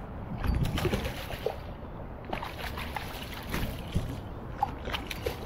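Kingfish thrashing and splashing at the water's surface beside a kayak: a run of irregular sharp splashes and water crackle.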